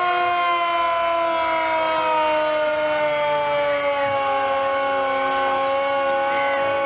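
Air raid siren wailing steadily for the air raid alert, several tones sounding together and slowly falling in pitch.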